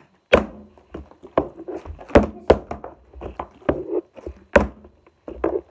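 Partly filled plastic water bottles being flipped and knocking down onto a wooden floor: an irregular run of about ten hollow thuds and knocks.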